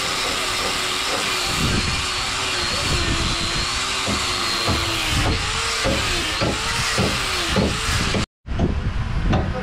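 Angle grinder with a sanding disc running hard against the wooden frame of a boat hull, sanding it back. Its motor whine wavers and dips several times as the disc is pressed into the wood. The sound cuts off abruptly near the end.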